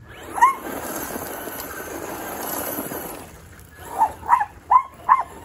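Traxxas Slash 2WD RC truck spinning donuts on dirt: a rush of tyre and dirt-spray noise for about three seconds. A dog barks once at the start and four more times in quick succession near the end.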